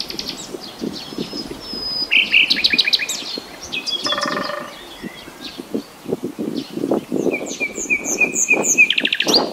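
Common nightingale singing: varied phrases of rapid repeated whistled notes, with a buzzy rattle about four seconds in and a fast run of short repeated notes near the end.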